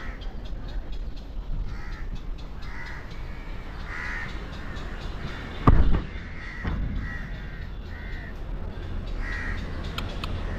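Crows cawing over and over, with a loud thump about halfway through and a steady low rumble underneath.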